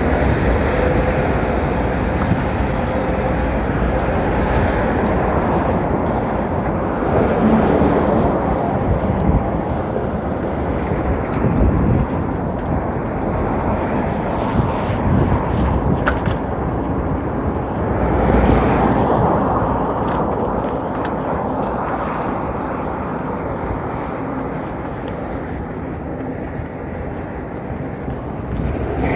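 Steady rumble and rush of a mountain bike riding a dirt trail: tyres on the ground and wind over the microphone.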